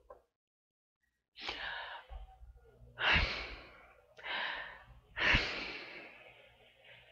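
A man laughing under his breath: four short, breathy exhalations about a second apart, each fading out, picked up close on a headset microphone.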